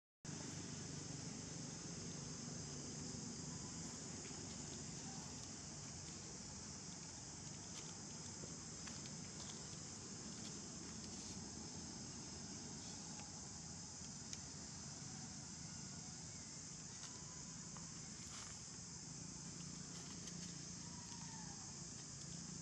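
Steady, shrill insect chorus running without a break, with a low hum beneath it. Near the end there is a faint falling whistle.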